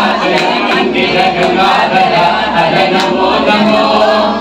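Voices chanting mantras together in a steady recitation, the temple chanting that goes with a Shiva abhishekam.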